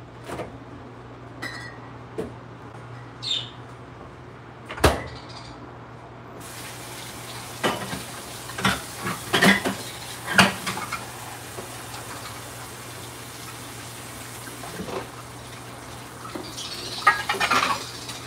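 Kitchen clatter: scattered knocks and clinks of dishes and utensils, with a sharp knock about five seconds in, a busier stretch in the middle and more near the end, over running water and a steady low hum.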